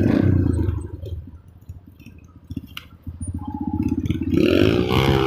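Motorcycle engine running with a rapid low pulse that drops away about a second in, leaving a quieter stretch with a few faint clicks. Near the end a loud wavering pitched sound comes in.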